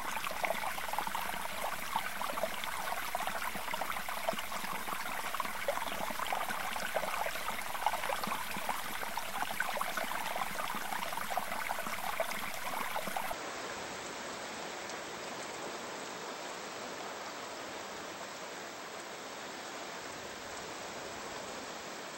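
Water rushing and crackling past an underwater camera as it is lowered through the sea. About thirteen seconds in it drops abruptly to a quieter, even hiss.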